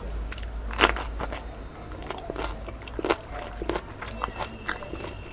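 Close-up crunching and crackling of crisp fried papad being bitten and chewed, in irregular sharp crunches with the loudest about a second in, over a low steady hum.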